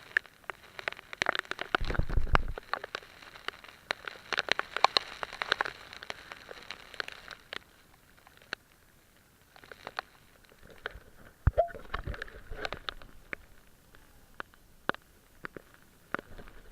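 Raindrops striking close to the microphone: a scatter of irregular sharp taps and clicks over a faint hiss, denser in the first half and again in the second, with a couple of low thumps at about two seconds and near the middle.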